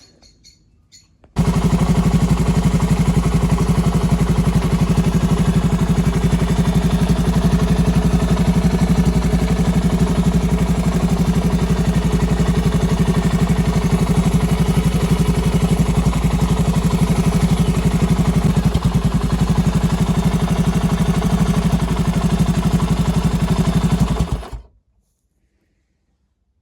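Honda TLR200 four-stroke single-cylinder trials-bike engine running at a steady idle on a test run. It comes in suddenly about a second in and cuts off abruptly near the end.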